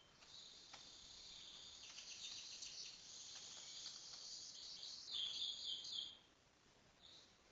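A caged songbird singing a long, high-pitched, rapid run of trills and chirps that breaks off about six seconds in, ending in a few louder repeated notes.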